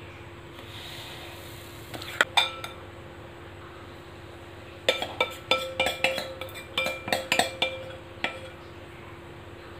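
A small ladle clinking against the batter bowl and the apem mold pan as batter is ladled into the cups: a couple of clinks about two seconds in, then a run of quick clinks from about five to eight seconds. A faint steady hum runs underneath.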